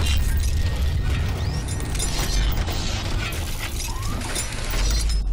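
Cinematic logo-reveal sound effects: a deep rumble under dense metallic clicking, ratcheting and shattering as mechanical parts lock together, with the rumble swelling near the end.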